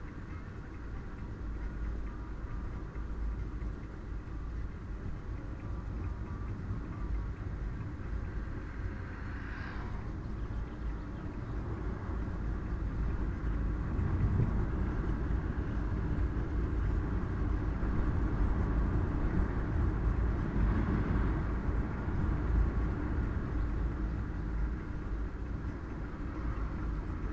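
A car on the move: a steady low rumble of engine and road noise that grows louder about halfway through.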